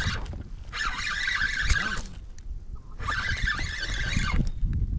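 Spinning reel whirring in two bursts of a second or so each while a hooked walleye is played on the rod.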